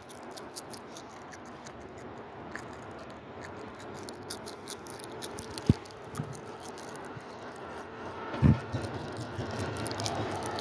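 Faint railway noise with scattered small clicks and rattles, and two sharp low thumps, one about halfway through and a louder one later. The noise begins to build near the end as a train draws nearer.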